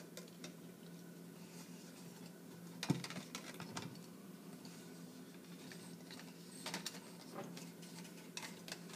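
Faint scattered clicks and scrapes of eggs and an egg-dipping tool knocking against a plastic cup of dye as the eggs are checked, with one sharper knock about three seconds in and more clicks near the end. A faint steady hum runs underneath.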